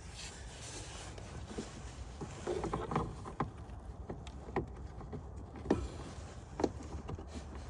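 Hands working a screen-wash pump back into its rubber bung: scattered small plastic knocks and clicks, roughly one a second, over rubbing and rustling.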